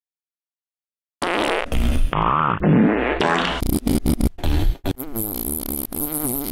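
A run of comic fart sound effects, one after another with wobbling, bending pitch, starting about a second in.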